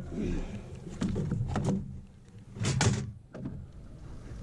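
Several dull knocks and thumps, things bumped against a small fishing boat as a big catfish is handled, over a low rumble.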